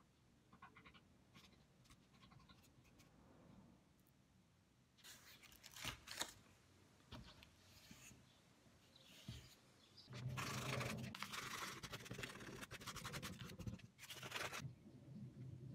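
Sandpaper rubbed by hand over a wooden saw handle patched with filler. A few soft scratches at first, then about four seconds of fast, continuous back-and-forth sanding in the second half, and one more short stroke just after.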